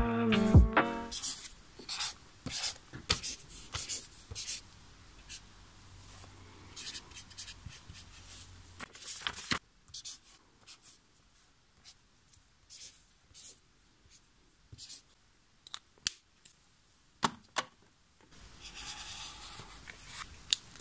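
Writing and marking on workbook paper with a pen and a felt-tip highlighter: short scratchy strokes and light taps coming in irregular runs, with paper rustling as pages are handled near the end.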